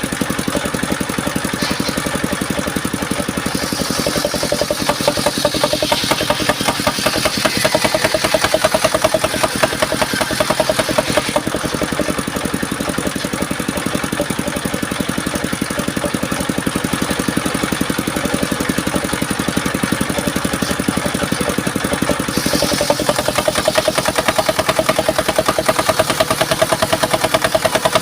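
Engine-driven circular sawmill running steadily, its engine firing evenly throughout. A higher hiss of the blade cutting mahogany comes in about four seconds in, drops away around eleven seconds and returns near the end.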